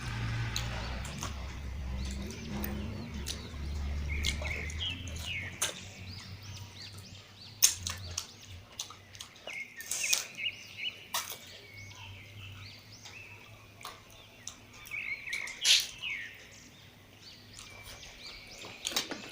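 Close-miked eating of curry and rice: chewing with wet mouth smacks and sharp clicks, the loudest about 7 s, 10 s and 16 s in. Short high chirps repeat underneath.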